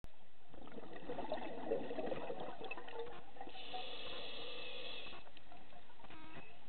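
Underwater water noise with a bubbling burble through most of the first five seconds and a higher hiss for a second or two midway.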